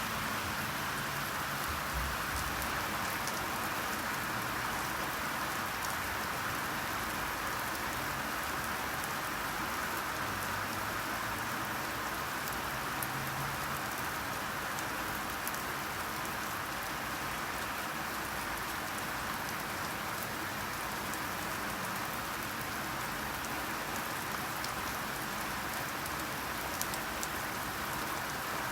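Steady rainfall, an even hiss of raindrops on a surface with scattered small drop ticks.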